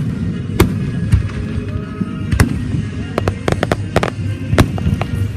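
Fireworks going off in a rapid, irregular series of sharp bangs and crackles, coming thicker from about three seconds in.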